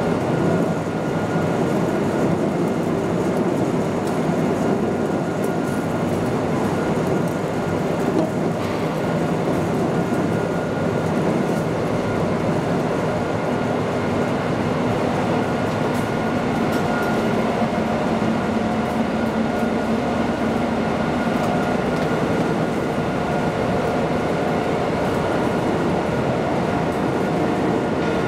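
Vertical turning lathe running steadily in a machine shop: a constant mechanical rumble and hum with a few faint steady whining tones that shift a little in pitch.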